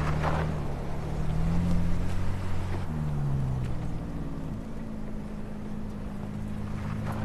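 Ford Bronco Raptor's twin-turbo 3.0-liter V6 running under way, its note shifting in pitch, with a sudden jump about three seconds in, after which it settles into a steadier, slightly higher hum.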